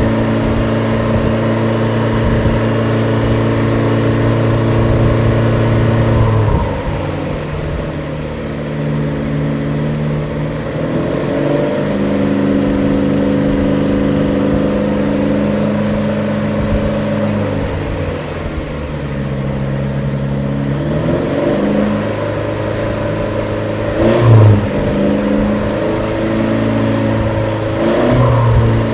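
Mitsubishi Triton ute's engine running, held at a raised speed that drops back and is raised again twice, with a short rev about three quarters of the way through and more revs near the end. The engine is being run to warm up and push the radiator flush through the cooling system.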